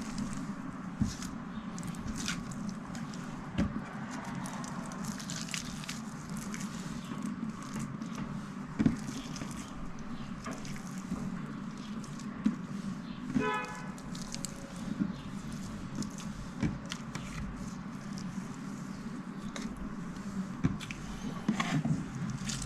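Slime being handled: scattered soft clicks and wet crackles over a steady low background rumble, with one brief high tone about halfway through.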